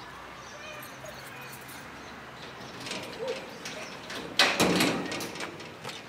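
Corrugated sheet-metal gate rattling and clanking as it is handled, loudest about two-thirds through. A pigeon coos softly in the background.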